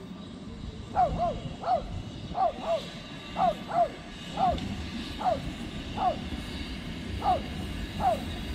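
A dog barking repeatedly, short calls falling in pitch about once or twice a second, starting about a second in. Under it runs the low rumble of the approaching narrow-gauge steam train.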